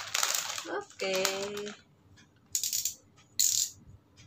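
Plastic diaper packaging crinkling as the pack is handled: a rustle at the start, then two short crinkles in the second half.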